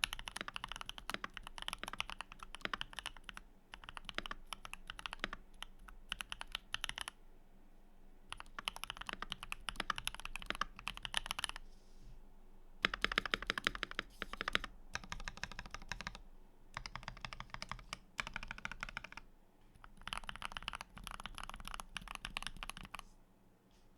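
Keychron V1 mechanical keyboard being typed on in fast runs of keystrokes, with several short pauses between the runs.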